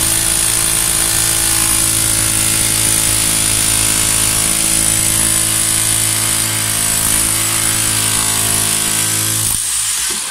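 Ingco electric demolition hammer running steadily, its chisel bit hammering into a concrete slab. It stops about nine and a half seconds in.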